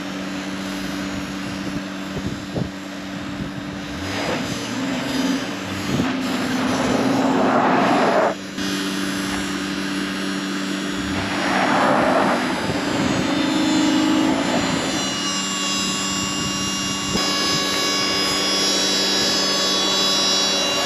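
Honda all-wheel-drive truck's V6 engine working up a steep rocky hill, over a steady hum throughout. It surges twice, about seven and twelve seconds in, with the tyres scrabbling for grip on loose dirt and rock.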